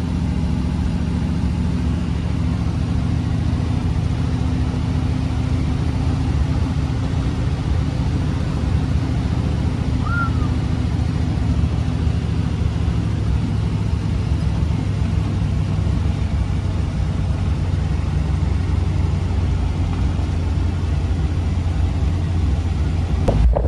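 Flathead V8 of a 1932 Ford roadster running at a steady cruise, with road and wind noise, heard from the open rumble seat.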